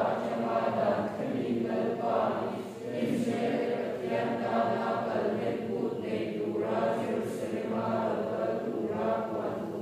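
Church congregation singing a hymn together, many men's and women's voices at once.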